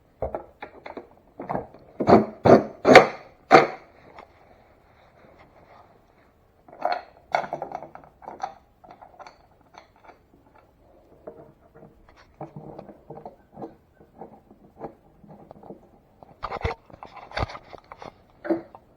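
Irregular clicks, knocks and scrapes of hand tools working on fender bolts as they are tightened, with a louder clatter about two seconds in and again near the end.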